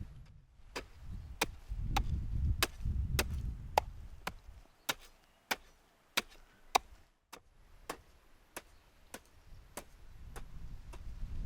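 Sharp knocks repeating evenly, about one every 0.6 seconds, over a low rumble that fades out around the middle and comes back near the end.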